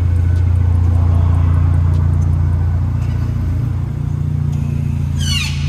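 BMW Z4 engine running steadily while the car is driven, with road noise, easing off slightly partway through. A brief high squeak comes near the end.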